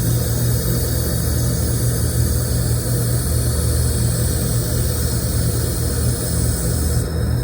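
Steady machine hum with a hiss from laser welding equipment running during a robot-driven production weld.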